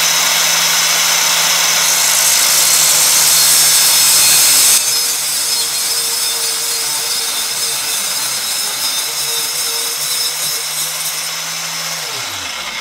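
Angle grinder in a bench stand cutting through a steel round bar with a worn cut-off disc, a loud steady grinding hiss over the motor's hum. Near the end it is switched off and the motor's pitch falls as the disc spins down.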